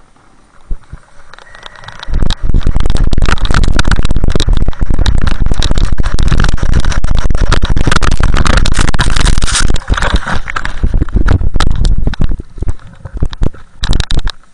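Snowboard sliding fast downhill over snow: a loud rush of wind and scraping noise on a camera close to the board, starting about two seconds in and breaking up into uneven bursts near the end.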